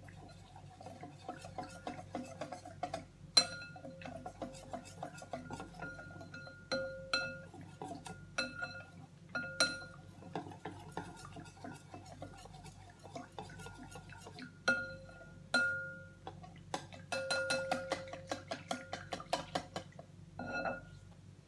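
Metal whisk beating thin batter in a glass mixing bowl, knocking and scraping against the glass, which rings after each knock. There is a fast flurry of strokes about three-quarters of the way through.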